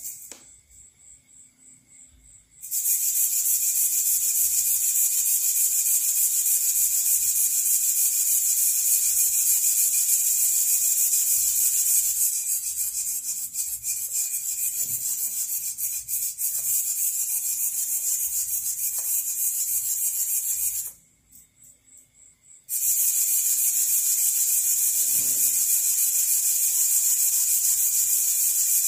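Two Emax ES08MA micro servos rapidly flapping an ornithopter's wing spars back and forth, a steady high-pitched rasping buzz. It starts about two and a half seconds in, cuts out for about two seconds near the end, and starts again.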